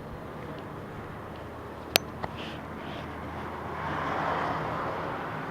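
Outdoor background noise with a steady low hum, a sharp click about two seconds in, and a louder rush of noise swelling up and fading between about three and a half and five seconds in, such as a passing vehicle.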